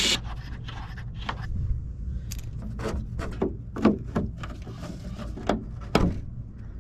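Irregular clicks and knocks of hand tools and car parts being handled during repair work, over a low steady hum.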